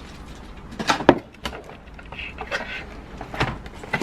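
A few sharp knocks and clatters of hard objects being handled, one about a second in and another near the end, with a brief voice-like sound in the middle.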